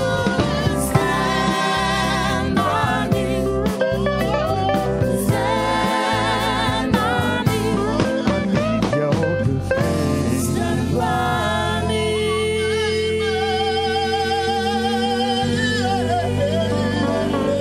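Live acoustic band music: several singers with guitar and percussive hits. In the second half, voices hold long notes with vibrato.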